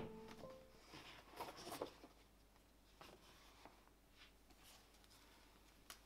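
Faint handling sounds of a cardboard box being opened and pyjamas lifted out of it: soft rustling about a second in, then a few light taps and clicks.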